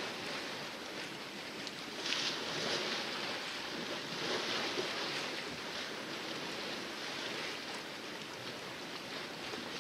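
Water splashing and rushing along the hull of a sailboat under sail in calm seas, in a steady wash with a louder splash about two seconds in.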